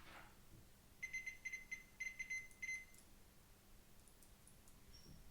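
Multimeter continuity beeper giving a quick, uneven string of short, high beeps, about seven in two seconds, starting about a second in. Each beep marks a closed connection as the test probes touch the contacts.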